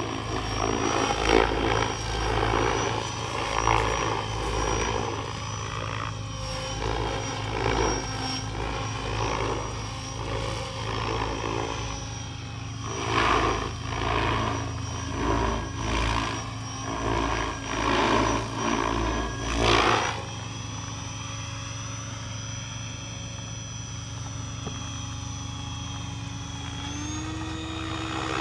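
Goblin Kraken 580 electric RC helicopter in aerobatic flight: its rotor blades whoosh in loud surges, about one a second, over a steady high whine from the electric motor and drivetrain. After about 20 seconds the blade noise settles into a steadier, quieter drone, and the whine steps up in pitch near the end.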